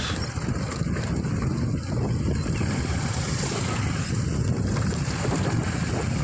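Wind buffeting an outdoor microphone: a steady, uneven low rumble with a hiss over it.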